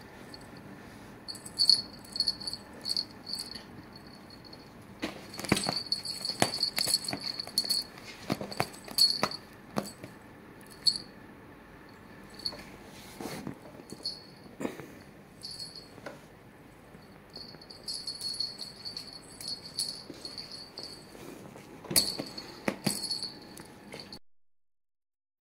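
Small bell on a cat's string wand toy jingling in bursts as the toy is jiggled and a kitten bats at it, with scattered light knocks. The sound stops abruptly near the end.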